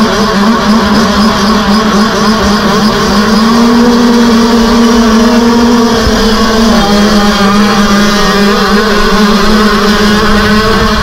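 Motocross bikes held at high revs on the start line, the nearest engine holding one steady pitch. About six or seven seconds in, the pack launches off the dropped start gate, and the engines change pitch and overlap as they accelerate away.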